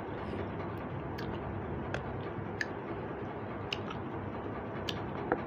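Chewing and mouth sounds of a person eating fish and rice by hand: soft wet clicks and smacks about once a second over a steady background hiss.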